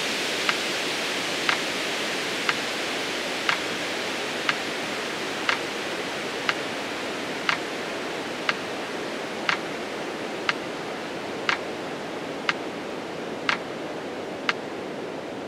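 Metronome ticking once a second, pacing the count of a slow exhale, over a steady hiss that slowly fades.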